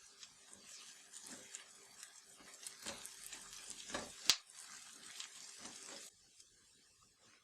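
Kitchen food-preparation sounds: scattered light rustling and soft knocks, with one sharp click about four seconds in.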